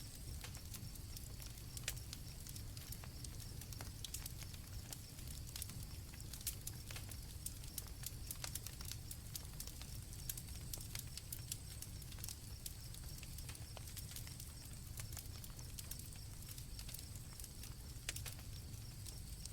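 Night campfire crackling, with irregular sharp pops over a low steady rumble, while crickets chirp steadily in the background.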